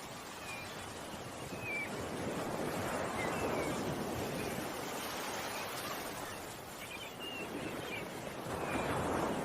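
Ocean waves washing in, swelling about two seconds in and again near the end, with small birds giving short chirps every second or two.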